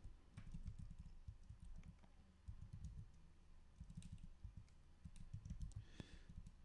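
Faint computer keyboard typing in short, uneven bursts of keystrokes with brief pauses between them.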